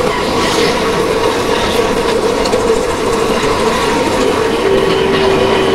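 Wind and road noise from a bike moving through city traffic, with a steady drone that drops to a lower pitch near the end.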